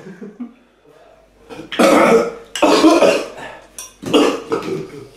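A man coughing hard several times, starting about a second and a half in, his throat stung by fiercely hot chili.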